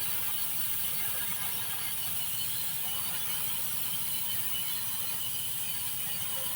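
TIG welding arc on stainless steel pipe, a steady crackling buzz as a root pass is run with 316 filler wire.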